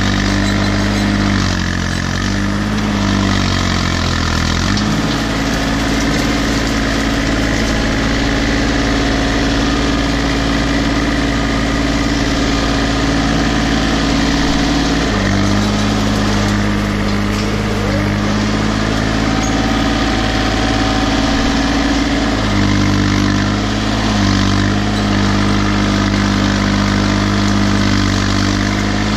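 Case 235 compact tractor engine running steadily close up as the tractor drives, its engine speed changing a few times: about two seconds in, again about halfway, and near the end.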